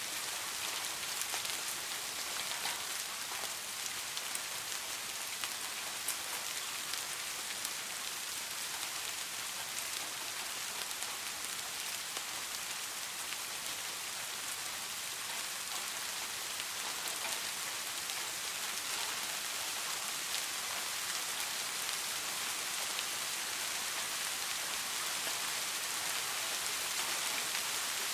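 Steady rain falling and pattering on a surface, an even hiss with many fine drop ticks and no thunder.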